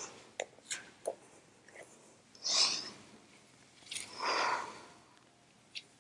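A woman breathing in time with a twisting stretch: two audible breaths, one about two and a half seconds in and a longer one about four seconds in, with a few faint clicks of movement around them.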